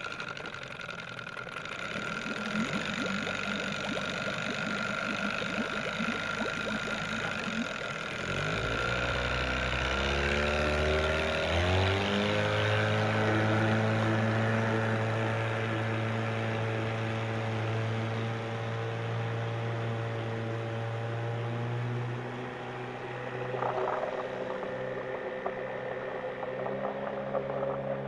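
A motor running with a steady hum that steps up in pitch a few times about a third of the way in, then holds steady.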